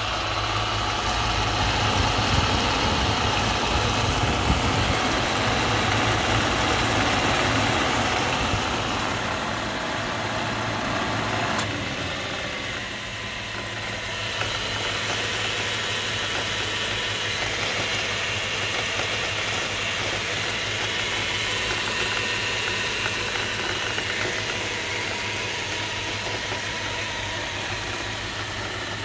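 Subaru H6 flat-six engine running at idle, heard up close at the front accessory belt drive with its pulleys spinning. The sound is steady, a little louder for the first twelve seconds or so, with one short click at about twelve seconds.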